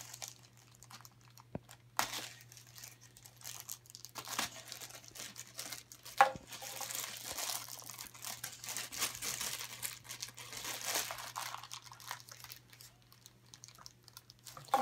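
Crinkly black plastic blind-box bag being pulled and torn open by hand, crackling in irregular bursts that are busiest in the middle, with one sharper crack about six seconds in.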